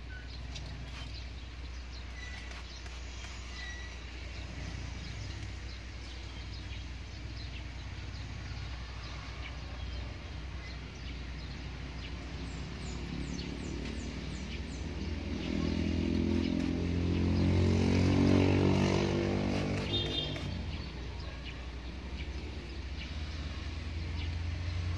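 A motor vehicle passes by: its engine grows louder in the second half, peaks, then fades, over a steady low hum.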